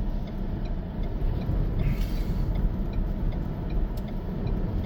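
Steady low rumble of strong storm wind and vehicle noise, heard from inside a car's cabin.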